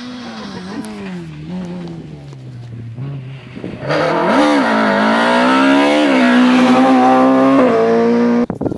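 Rally car engines at full throttle: first a car heard from afar, its engine note falling, then after a sudden jump in loudness a car coming up close, the engine note climbing and dropping sharply at each gear change. The sound stops abruptly near the end.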